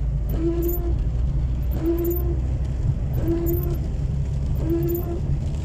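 Inside a car's cabin in the rain: steady engine and wet-road rumble, with the windshield wipers sweeping. A short steady tone comes about once every second and a half, in time with the wiper strokes.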